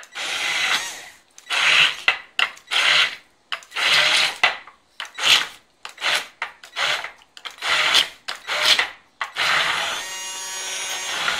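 KitchenAid Pro Line cordless hand blender at speed 5, its four-prong blade chopping a thick, chunky mixture. It runs in about a dozen short bursts with pauses between, then from about nine seconds in runs continuously with a steady motor whine.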